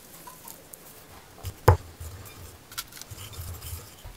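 Quiet handling sounds of a cookie dough ball being rolled in granulated sugar in a ceramic bowl: faint gritty rubbing and small ticks, with one sharp knock about a second and a half in.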